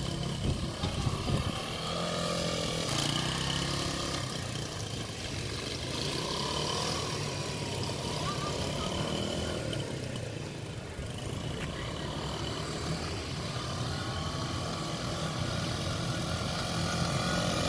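110 cc ATV engine running at low speed as the quad is ridden around, steady throughout and growing louder near the end as it comes closer.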